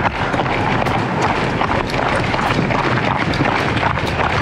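Running footsteps striking pavement in an uneven beat, with heavy wind rushing over the microphone.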